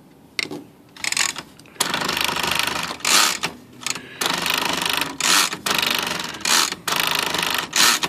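Smith Corona electric typewriter's motor and mechanism running, a steady whirring with several louder clattering bursts, as the power spacer is tried out. The power spacer does not work with its adjustment nut tightened too far.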